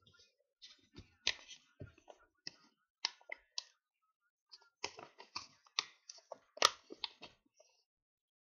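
A paper envelope being handled, folded and pressed flat by hand: irregular short crackles and taps of stiff paper in small clusters, with one sharper crack about two-thirds of the way through.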